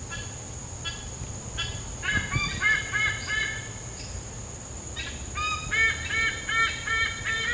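A bird calling with short nasal, honking notes: a few single notes, then fast runs of about three or four a second from about two seconds in and again after a brief pause, over a steady high-pitched hiss.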